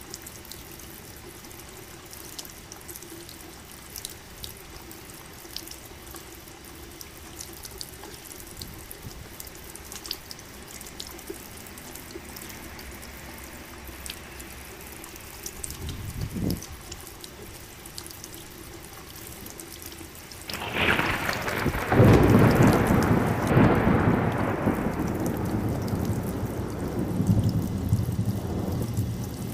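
Steady rain with scattered drips, a short low rumble just past halfway, then a loud thunderclap about two-thirds of the way in that rolls on as rumbling thunder and slowly fades.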